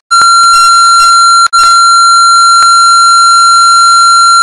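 Public-address microphone feedback: a loud, steady, high-pitched squeal held on one pitch. It breaks off for an instant near the start and again about a second and a half in.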